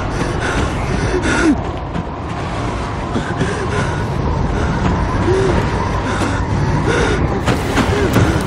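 A man's short, voiced gasping breaths every second or two, over a steady rush of blizzard wind.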